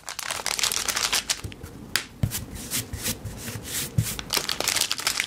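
Small clear plastic bag of ball bearings crinkling and rustling as it is handled, with many light clicks and taps.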